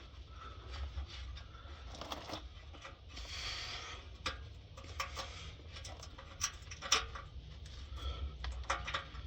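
Quiet handling noises: scattered light clicks and knocks of things being set down and moved, with a brief scraping hiss a little after three seconds in, over a steady low background rumble.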